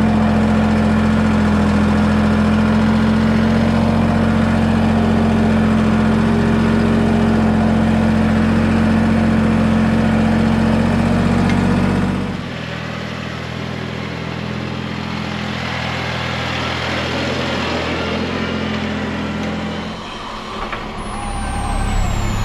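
Compact tractor engine running at a steady speed. About halfway through it changes abruptly to a quieter, steady engine drone, which drops away a couple of seconds before the end.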